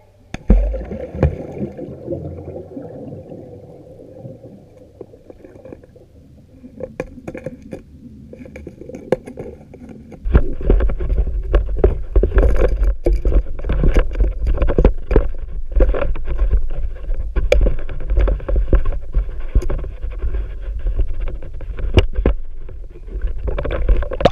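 Muffled rumble of moving water picked up by a submerged camera. It starts abruptly about ten seconds in and runs loud and low, with many irregular knocks and clicks against the housing. Before it comes a single heavy clank near the start, then fainter handling noise.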